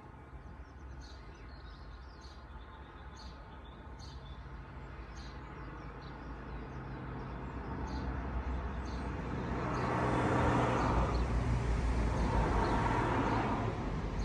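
A motor vehicle coming along the road, growing steadily louder over several seconds and staying loud near the end. Small birds chirp repeatedly in the first half.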